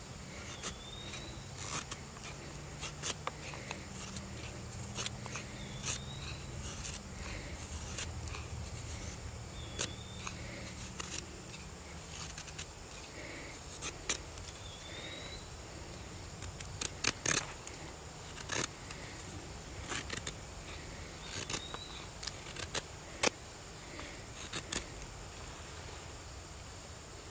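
Knife blade shaving curls down a wooden stick to make a feather stick: irregular short scraping strokes, some sharper and louder than others. A steady high insect trill runs behind.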